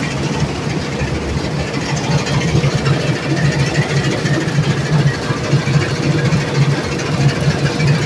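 Massey Ferguson 186 combine harvester's Perkins A4.212 four-cylinder diesel running steadily under load, with the threshing machinery and reel working as it cuts wheat.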